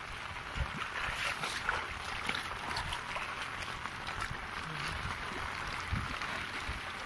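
Steady hiss of light rain on shallow floodwater, with soft splashes of wading through it.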